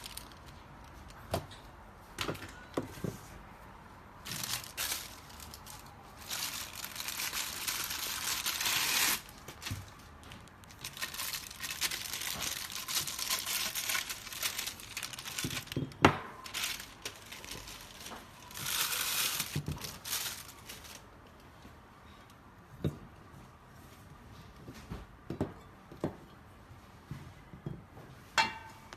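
Packaging being handled: several stretches of crinkling and tearing over the first two-thirds, with scattered knocks and clicks, the sharpest about sixteen seconds in.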